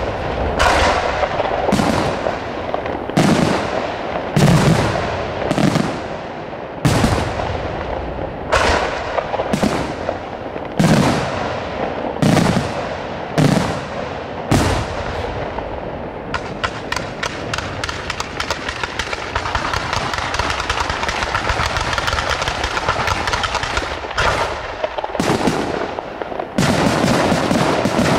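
Aerial firework shells bursting one after another, a sharp bang about every second and a half, each trailing off in an echo. About halfway through this gives way to dense, rapid crackling of many small reports. Near the end it builds into a loud, continuous barrage.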